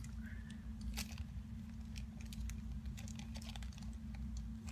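Plastic packaging crinkling and rustling in hands as a small bagged item is unwrapped: irregular sharp crackles and clicks over a steady low hum.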